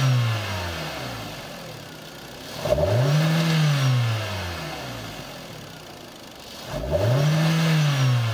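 Hyundai G4KD 2.0-litre DOHC 16-valve four-cylinder engine being revved from idle. At the start it falls back from one rev, then it is blipped twice more, about three and seven seconds in. Each time the pitch rises quickly and sinks slowly back to idle.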